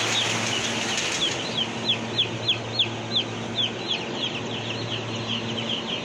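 A poultry house full of young chicks peeping: a dense chorus of short, falling chirps, several a second, over a steady low hum.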